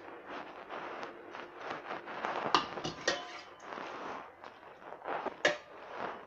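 Hands working flour dough in a stainless steel bowl: a soft, continuous scrubbing and rustling, broken by three sharp metal clinks of a ladle against the bowl, two close together around the middle and one near the end.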